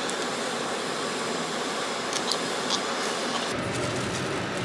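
Steady rushing noise in a car cabin, with a few faint crisp clicks about two seconds in that fit tortilla chips being bitten and chewed.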